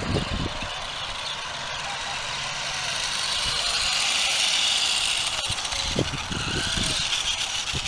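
A small battery-powered RC toy truck (Sharper Image Thunder Thrasher) running, its electric motor and plastic gearbox whirring and rattling. The whir grows louder toward the middle and then fades, with a few dull thumps near the start and again about six seconds in.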